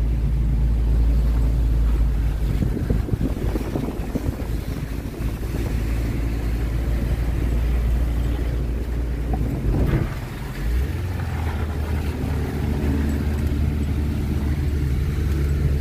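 Car engine and road noise heard from inside the cabin as the car climbs a steep mountain road: a steady low drone with some wind noise. The engine note changes about ten seconds in.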